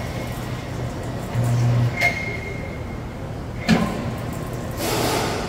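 Workshop vehicle lift's electric motor running as it raises a pickup truck: a steady low hum, with a couple of sharp clicks and a short hiss near the end.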